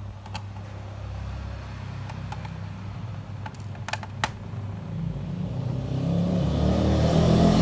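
A low, steady motor hum that grows louder over the last few seconds, with a few sharp clicks from small hardware being worked, such as screws coming out of a laptop's RAM cover.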